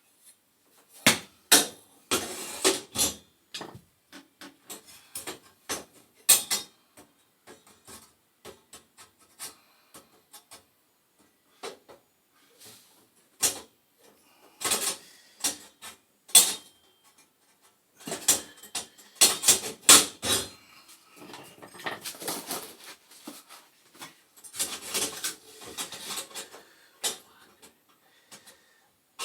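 Sheet-metal gas burner tubes of a boiler being slid into their tracks and dropped into place: irregular metal clinks, knocks and scraping rubs, some sharp and loud, with short pauses between.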